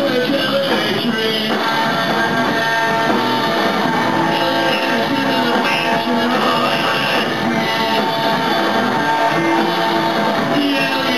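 A rock band playing live: electric guitars and a drum kit, loud and steady throughout.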